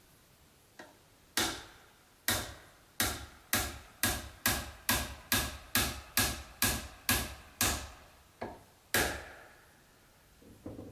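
Hammer driving nails into wooden cladding boards, about fifteen blows. After two slower strikes comes a quick, steady run of two to three a second, then one last heavier blow and a few light taps near the end.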